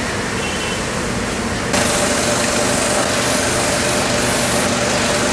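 Steady machine hum with hiss, stepping up abruptly louder and brighter about two seconds in.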